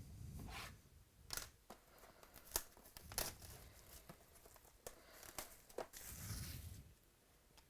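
A trading card pack wrapper being torn open and crinkled, with a series of sharp snaps and clicks as the pack and cards are handled.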